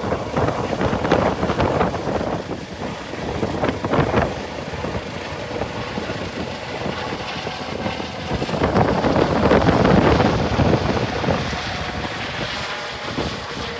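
Airbus H135 helicopter's twin turbine engines and rotors running at close range during takeoff, with gusty rotor-wash noise on the microphone; it swells loudest a little past the middle.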